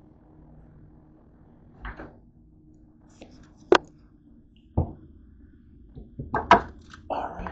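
A series of separate sharp knocks and clicks from handling: the camera being picked up off a kitchen counter and things being moved about in an open refrigerator. A quick cluster of knocks comes near the end, followed by a short scuffing noise.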